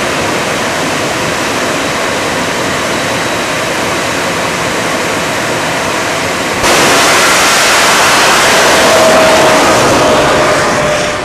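Jet truck's jet engine running with a steady roar while stationary, then about six and a half seconds in a sudden jump to a louder, harsher roar as it goes to full power and launches down the drag strip. A thin whine sinks slightly in pitch near the end as the truck pulls away.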